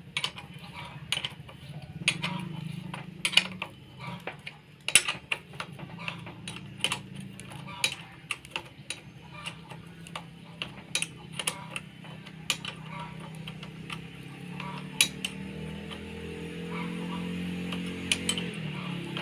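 Hand tools clinking and clicking irregularly on metal as the bolts of a motorcycle front disc brake caliper are refitted, over a steady low hum. A second low hum swells over the last few seconds and cuts off shortly before the end.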